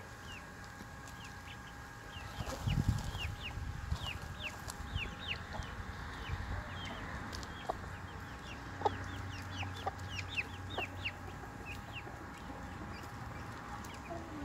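Brahma chicks peeping: many short, high, falling cheeps, several a second. A louder low rustle comes about three seconds in.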